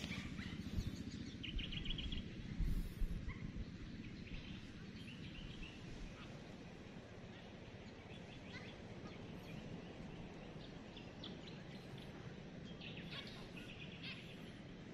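Birds chirping now and then in short quick runs over a steady low outdoor rumble, with a few low bumps in the first three seconds.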